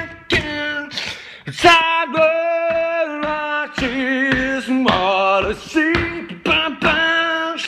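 A man singing a cappella in long held notes, some wavering with vibrato, broken by short sharp percussive mouth sounds between phrases.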